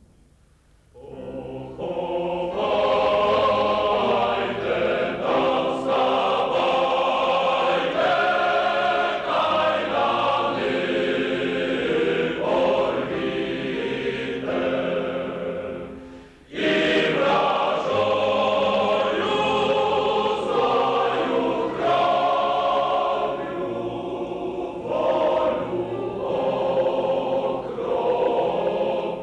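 A choir singing a slow song in long held phrases. It comes in about a second in, breaks off briefly about halfway, then starts again at full level.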